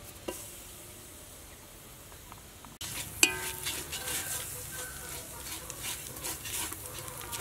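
Palm sugar melting in a hot pan, sizzling and crackling as a metal spoon stirs and scrapes it. The sound starts suddenly about three seconds in, after a quiet stretch with one light tap.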